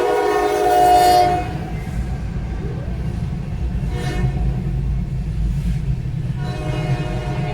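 A loud horn sounding a chord of several notes over a steady low rumble. The horn drops away about a second in and sounds again near the end.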